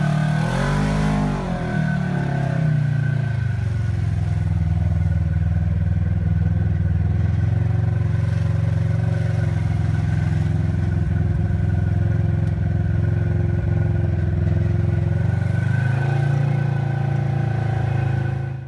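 Vehicle engine idling steadily close by, with a brief rise and fall in engine speed about a second in.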